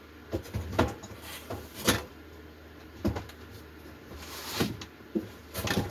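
A series of knocks and bumps, about eight in all, the loudest about one and two seconds in, with a brief scrape a little past four seconds, as objects are handled and set down in a small cabin.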